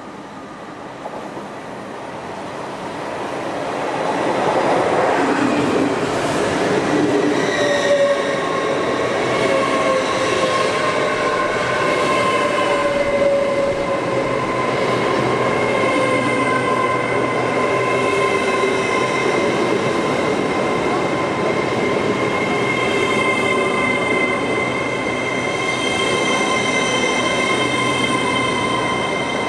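LNER Class 801 Azuma electric train arriving and slowing along the platform. The running noise rises over the first few seconds and then holds. From about eight seconds in, several steady high tones sound over it, with a lower tone gliding down for a few seconds.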